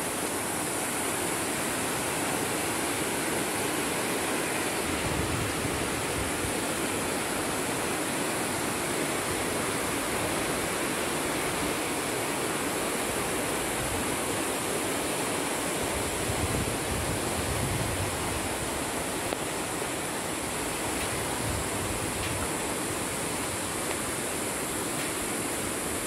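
The Sarapiquí River rushing steadily below a suspension bridge, a continuous even hiss of running whitewater. A steady high-pitched drone sits on top of the water noise.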